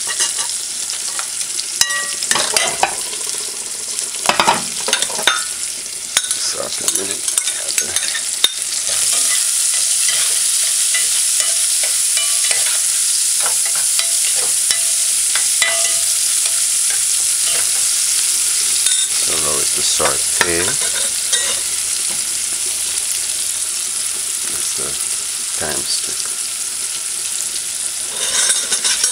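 Onions, garlic and scallion sizzling in hot oil in a metal pot, with scattered knocks and scrapes of stirring against the pot. The sizzle grows louder about nine seconds in, when more chopped vegetables are tipped in.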